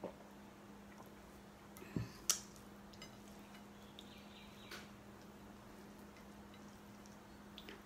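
A steady low hum under a few light table clicks, and about two seconds in a soft knock and a sharp clink as a drinking glass is set down on the table.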